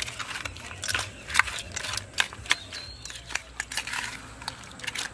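Spoon mixing crab pieces with spice pastes and mustard oil in a steel tiffin box: irregular clicks and scrapes of the spoon and crab shells against the steel.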